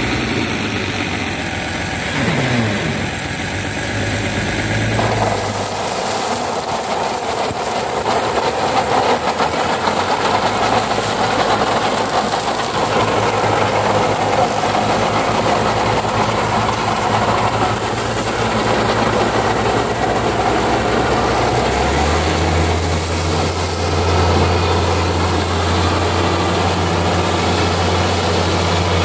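Tractor engine running steadily while its rotary disc mower cuts tall, dense grass. The sound changes about five seconds in, and a deeper steady hum takes over after about twenty-two seconds.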